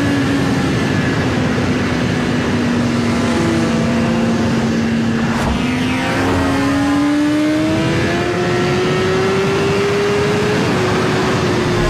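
Synthesized engine-like sound effect: a steady drone over a noisy hiss, its pitch sagging a little and then rising steadily in the second half like a car speeding up, with a brief click about five and a half seconds in.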